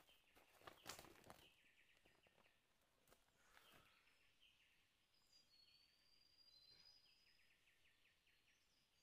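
Near silence of forest ambience. Dry leaves rustle briefly in the first second and a half, then faint, rapidly repeated chirping goes on, with a thin high whistled bird call about halfway through.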